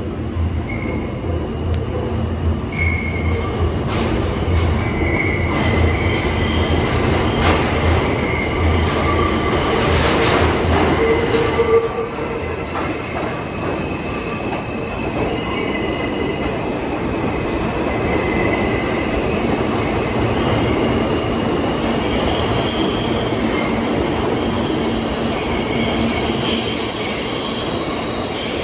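New York City subway train moving through a station: a steady rumble with high wheel squeals coming and going. A low hum drops out suddenly about twelve seconds in.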